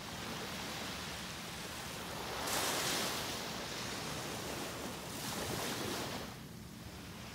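Small Gulf of Mexico waves breaking and washing up on a sandy beach, the surf swelling twice: louder about two and a half seconds in, again about five seconds in.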